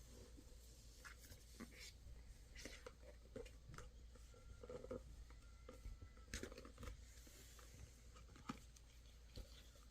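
Faint handling sounds of unboxing a phone: scattered light clicks, taps and rustles of the box and packaging being handled, over a low room hum.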